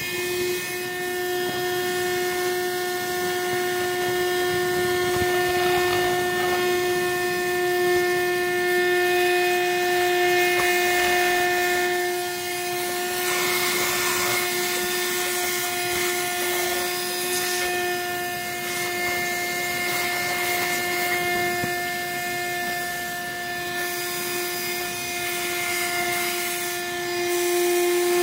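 Small electric cleaning tool's motor running at a steady high whine over a rush of air, clearing dust out of a graphics card.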